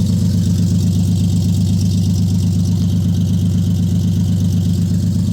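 Toyota 1GZ-FE 5.0-litre V12 engine idling steadily with an even, smooth hum, running cold after its first start after standing a long time.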